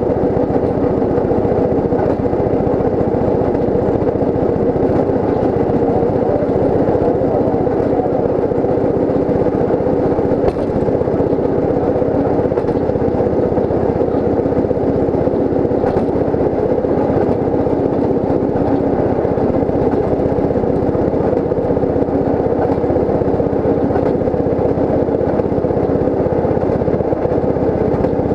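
Rail speeder's small engine running steadily as the motorcar travels along the track at cruising speed, with a couple of brief clicks from the wheels partway through.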